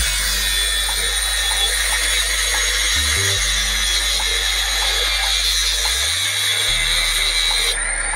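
Homemade angle grinder running, a steady high whine over a harsh grinding noise, cutting off abruptly near the end.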